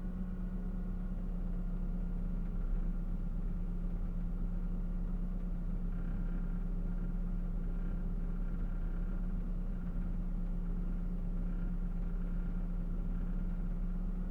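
Truck engine idling steadily with a deep, even hum. In the second half a faint higher note swells and fades about every second and a half.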